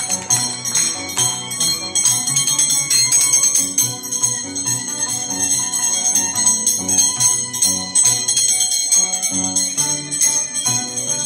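Scissors-dance music: a violin and an Andean harp play a tune, while the dancers' steel scissor blades clink in a quick, continuous metallic ringing over it.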